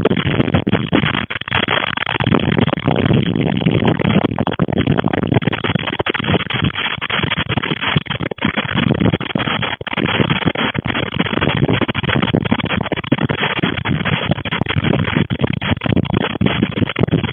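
Loud rushing wind and rain from a tornado storm, fluctuating rapidly, mixed with electronic background music.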